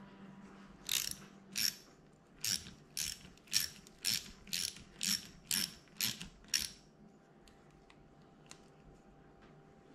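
Hand ratchet tool clicking in about eleven short bursts, roughly two a second, as it tightens the clamp screw that nips the choke cable on a Bing carburettor.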